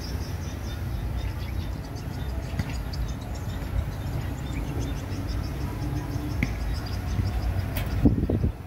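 Wind buffeting the microphone in a steady low rumble ahead of a rainstorm, with a faint high pulsing sound above it. Near the end comes a louder knock, and the rumble then drops away.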